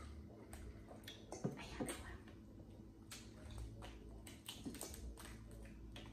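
Boiled crawfish being peeled by hand: scattered cracks and clicks of the shells breaking, with a few short wet mouth sounds of eating.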